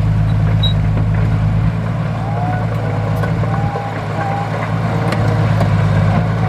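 Large diesel engine of heavy earthmoving machinery running steadily, easing off a little about two seconds in and building back up past the middle.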